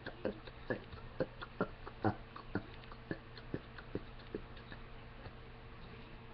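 A run of short, sharp throat or mouth clicks from a person, about two a second, fading out about four seconds in.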